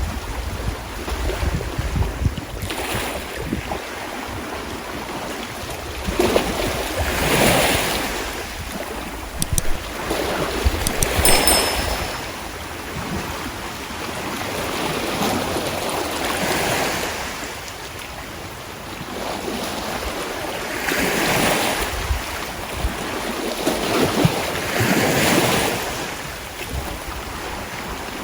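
Sea waves washing in, each surge of surf swelling and fading every four to five seconds, with wind rumbling low on the microphone. A few sharp clicks come about ten seconds in.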